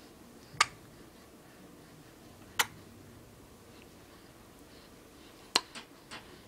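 Three sharp, sharp-edged clicks a couple of seconds apart over a quiet room, the last followed quickly by two softer ones.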